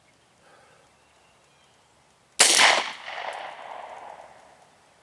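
A single gunshot from a JR Carbine firing .45 Auto full-metal-jacket, about two and a half seconds in, followed by its echo rolling away over a couple of seconds.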